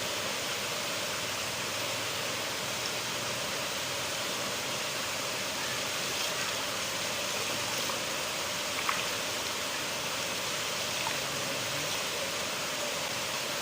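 River water flowing in a steady rush, with a few faint splashes or ticks.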